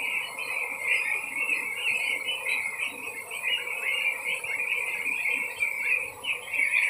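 A large flock of young goslings peeping continuously, many high calls overlapping into a steady chorus.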